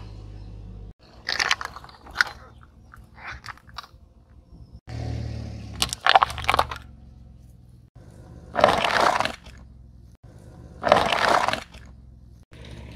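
A car tyre crushing small objects on asphalt, one after another: a series of separate crunching and cracking sounds, with sharp cracks about six seconds in and two longer, louder crunches in the last five seconds. A low car engine hum sits under some of them.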